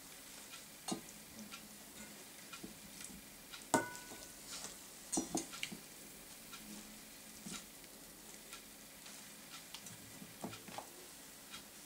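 Raw chicken thighs being handled and laid piece by piece into a pan of leeks in cider: faint, scattered soft wet taps and squelches, with a sharper click and a brief ring about four seconds in.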